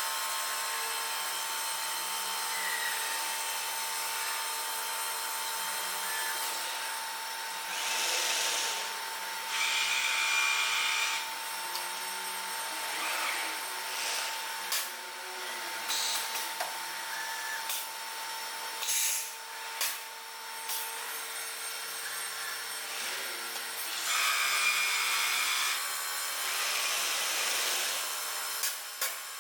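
AitalMAC Orbit A8 CNC stone-working machine running, its tool cutting or grinding stone, with louder surges several times. A steady whine runs under it and stops about two-thirds of the way through.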